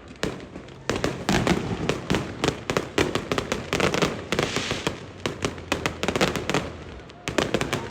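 Fireworks going off in quick succession: a dense run of sharp bangs and pops, with a patch of crackling about four seconds in.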